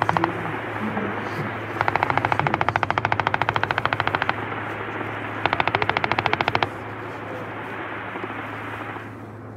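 Machine gun firing three long bursts of rapid, evenly spaced shots: one ending just after the start, one of about two and a half seconds, and a shorter one of about a second. The reports echo on between bursts and fade out near the end.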